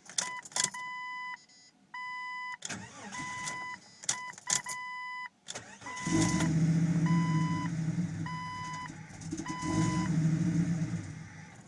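A Jeep Cherokee XJ's dashboard chime beeps in a steady repeating pattern, with a few clicks. A little over five seconds in, the engine cranks and catches, then runs with a wavering, uneven level while the chime keeps beeping. The owner is documenting a misfire and rough idle.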